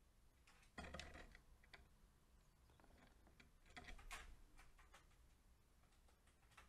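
Near silence broken by a few faint ticks and taps, the loudest about a second in and again about four seconds in.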